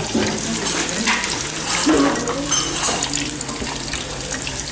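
Batter-coated young linh fish deep-frying in a wok of hot oil: a steady sizzling hiss.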